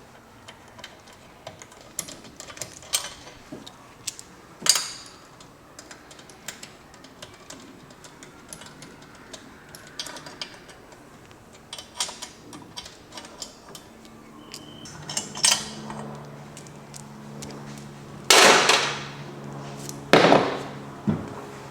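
Small metal engine parts and hand tools clinking, tapping and knocking against each other and the bench at an irregular pace, with a few louder knocks and scrapes near the end. A steady low hum comes in about two-thirds of the way through.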